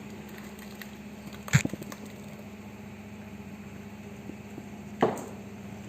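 Two sharp knocks, about a second and a half in (with a few small clicks after it) and again near the end, over a steady low hum: a spoon knocking against the cooking pot as tomato puree is added to the chicken.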